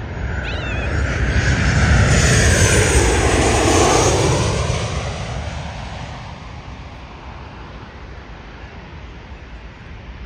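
Jet airliner engines as a Ryanair Boeing 737 passes low overhead on landing approach with its gear down. The sound swells to its loudest a couple of seconds in, with a whine sweeping down in pitch as it goes by, then fades to a distant rumble by about six seconds.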